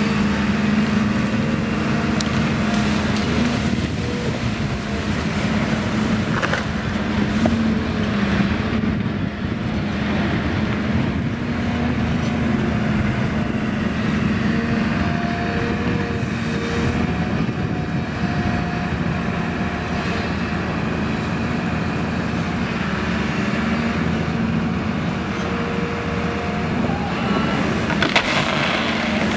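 Volvo tracked excavator's diesel engine running steadily under load as its hydraulic demolition shears work, with a higher hum that comes and goes. Wood cracks and splinters a few times, about a second in, around seven seconds and near the end, as tree trunks and branches are sheared.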